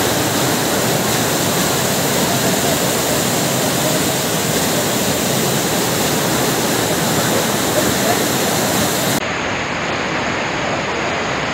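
Floodwater rushing in a torrent: a loud, steady rush of water. About nine seconds in, the sound cuts to another recording of rushing floodwater, slightly quieter and duller.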